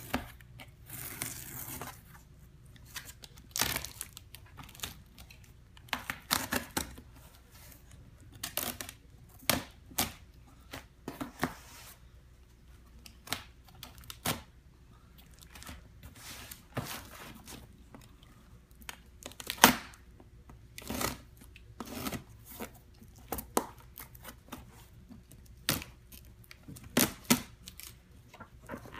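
Clear packing tape being peeled and ripped off a cardboard shipping box in many short, irregular tearing bursts, with the box shifted about between them.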